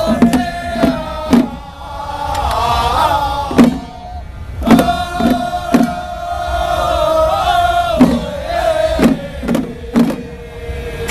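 A small ritual-drum troupe chanting a held melody in unison, punctuated by scattered single strikes on small handheld drums. The chant breaks off for a moment about four seconds in, then resumes.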